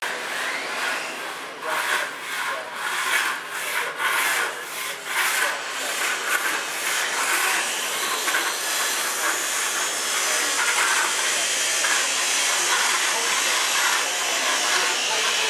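Rhythmic rasping strokes, about two a second, giving way to a steadier hiss about halfway through.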